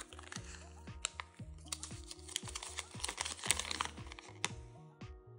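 Folded paper leaflet from a Kinder Joy capsule rustling and crackling as it is handled and unfolded, a dense run of small crinkles and clicks that stops near the end. Background music with a steady bass line plays throughout.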